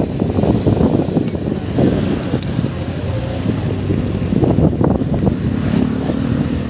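Wind rumbling on the microphone of a camera on a moving bicycle, mixed with the steady noise of road traffic.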